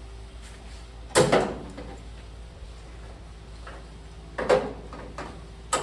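Sheet-metal roll pan being pushed and knocked into place against the rear of a Chevy C10 pickup: sharp metallic knocks come in three bouts, a double hit about a second in, another about four and a half seconds in, and a single one near the end.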